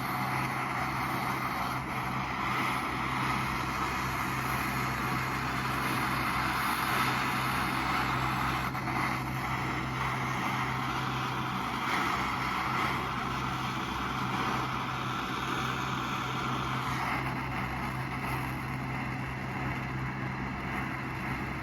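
Gas burner flame hissing steadily over a low hum while the casting flasks are preheated to drive out moisture before the copper pour. The hiss eases slightly about three-quarters of the way through.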